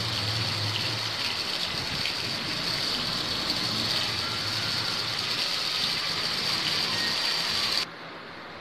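Marinated paneer cubes shallow-frying in hot oil in a pan: a steady sizzle. Near the end it drops away suddenly to a much fainter hiss.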